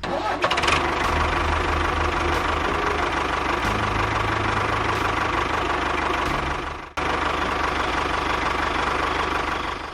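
Tractor engine running steadily, starting at the outset; it breaks off abruptly for a moment about seven seconds in, then carries on.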